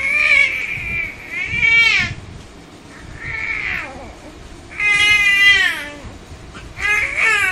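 Baby fussing and crying: a string of about five drawn-out, wavering wails with short pauses between them.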